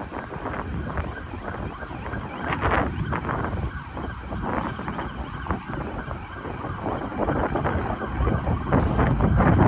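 Wind buffeting the microphone, an uneven, gusting rumble that grows stronger near the end.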